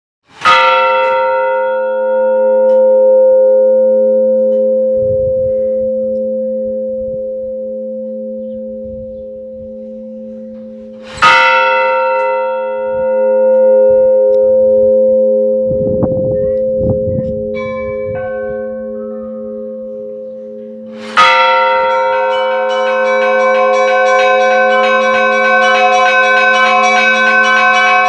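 Russian Orthodox church bells: a large bell struck three times about ten seconds apart, each stroke left to ring out with a long deep hum. After the third stroke smaller bells join in a quick, continuous peal over it.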